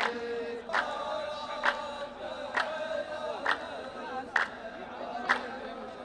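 A row of men chanting a poetry verse in unison in long drawn-out notes, as the chorus of a Saudi sung-poetry duel. Loud unison hand claps from the whole line fall about once a second.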